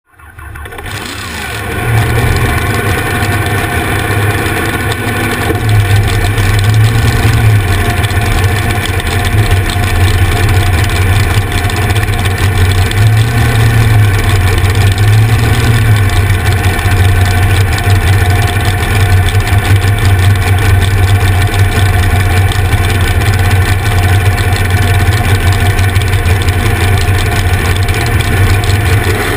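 Dragster's V8 engine running at a loud, steady idle through open headers, with an uneven low rumble.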